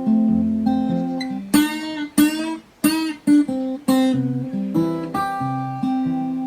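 Background music led by acoustic guitar, with sharp strummed chords every half second or so over sustained notes and a bass line.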